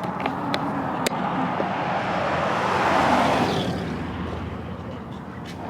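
Road noise from a moving vehicle, with a few light clicks in the first second. A vehicle rushes past, swelling to its loudest about three seconds in and then fading.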